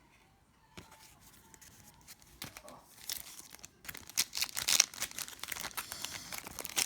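Hockey card pack wrapper being torn open and crinkled, faint at first, then a dense crackly rustle from about three seconds in.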